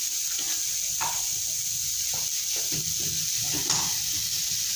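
Steady hiss of semolina halwa cooking in a steel pot, with a few short soft knocks and scrapes scattered through it.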